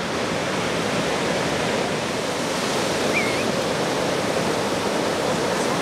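Ocean surf breaking and washing in the shallows: a steady rushing noise.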